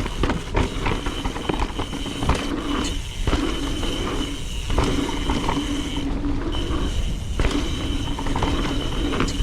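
Mountain bike rear freehub buzzing as a 2020 Trek Remedy 9.8 coasts down a dirt trail. The buzz stops briefly a few times, with rattles and knocks from the bike over the ground.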